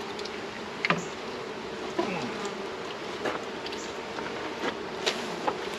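A mass of honey bees buzzing in a steady hum over an opened hive full of honey, with single bees now and then passing close by in short falling whines. A few light knocks come in between.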